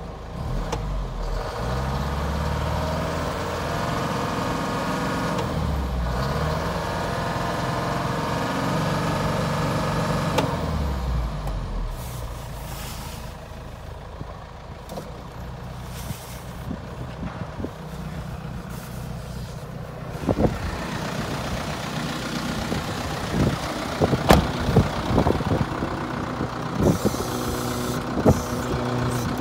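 Mitsubishi Canter truck engine revved several times while stationary, its pitch rising and falling, then settling back to a steady idle. In the second half a series of sharp knocks and clicks sounds over the idling engine.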